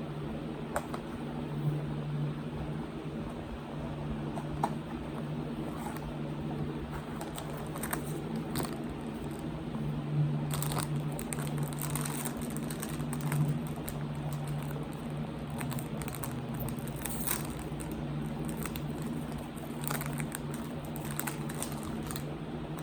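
Blind-box packaging being handled and opened by hand: scattered crinkles, rustles and small clicks of cardboard and a foil bag, busiest about halfway through. A steady low hum runs underneath.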